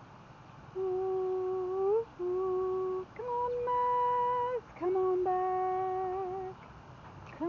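Aussiedoodle whining: a string of long, steady whines of a second or so each, the first rising in pitch at its end and the third a little higher than the rest, with another beginning near the end.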